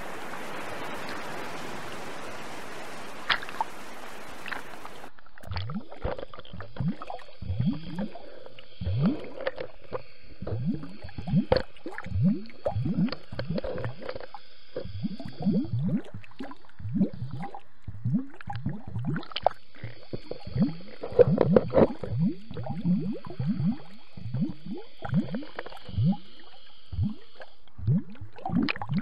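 A steady open-air hiss, then about five seconds in the sound turns muffled and dull as the microphone goes underwater, followed by a continuous run of short gurgling, bubbling blips from water moving around it.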